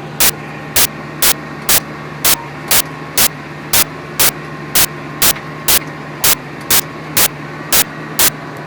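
John Deere 8400T track tractor's diesel engine running steadily under plough load. Over it, short loud bursts of hiss sound at an even beat of about two a second.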